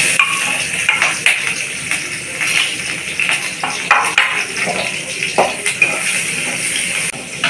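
Chopped onion and green chilli sizzling in hot oil in a kadhai as they are tipped in, with a metal spatula scraping and clicking against the pan while it is stirred. The sizzle cuts off suddenly near the end.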